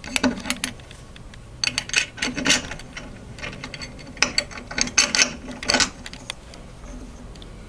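Metal hardware, screws, bolts and steel brackets, clinking and rattling as it is handled and fitted together, in irregular clusters of sharp clicks.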